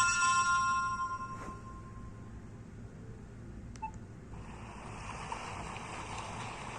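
Tail of a BlackBerry Curve 9300 preloaded ringtone, its electronic tones ringing out and fading over the first two seconds. A click comes about a second and a half in, and another click with a short beep near four seconds. A steady hiss then begins.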